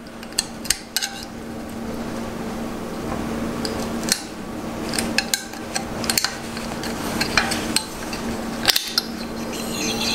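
Screwdriver blade prying the wire retaining clip for the main seal out of a motorcycle fork's outer tube: irregular sharp metal clicks and scrapes as the blade catches and works the clip free of its groove.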